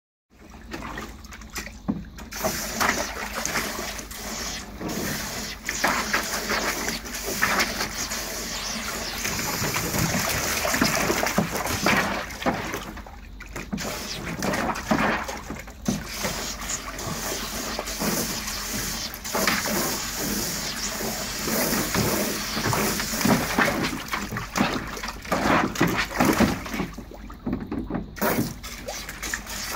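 Huskies splashing in shallow water in a plastic pond liner: irregular splashes and sloshes.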